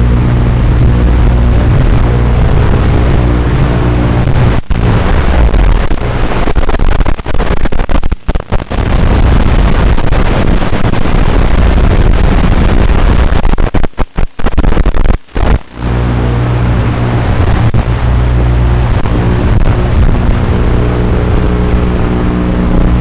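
Micro FPV racing drone's motors and propellers buzzing loudly, steady at first, then rougher with changing throttle. The sound drops out briefly several times, about five seconds in, around eight seconds, and again twice between fourteen and sixteen seconds.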